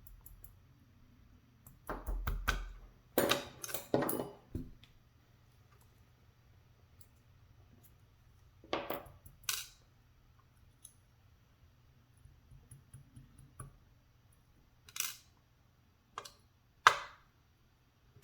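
Small metal lock parts of a Scorpion CX5, its sliders being worked out of the core, clicking and clattering onto a hard surface in short bursts: a cluster of clicks about two seconds in, two more around the middle, and a few single sharp clicks near the end.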